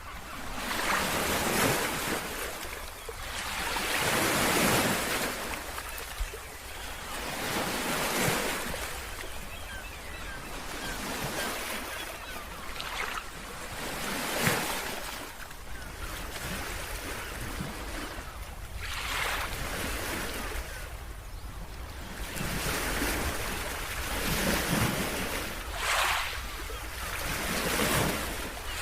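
Surf on a beach, with waves breaking and washing in every few seconds over a steady low wind rumble on the microphone.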